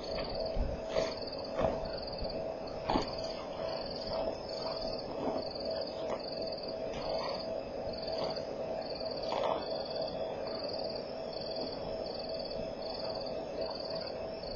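A night insect chirping steadily, a short high chirp repeated evenly about three times every two seconds, over a constant low hum. Scattered soft knocks, the loudest near the start.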